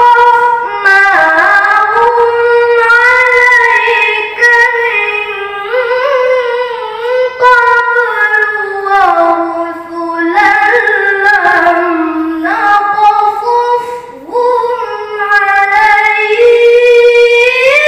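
A child reciting the Quran in melodic tilawah style into a microphone: a high voice holding long notes and bending them through ornamented runs, with short breaths between phrases.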